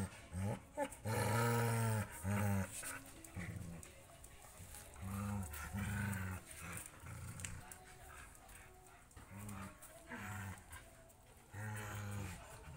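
Dogs growling while they play-fight and mouth each other, in a string of low growls of up to about a second each, starting and stopping throughout.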